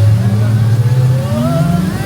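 Dinosaur dark ride's onboard soundtrack: a loud, steady low vehicle rumble, with tones gliding upward about a second in, as the Time Rover sets off after the launch countdown.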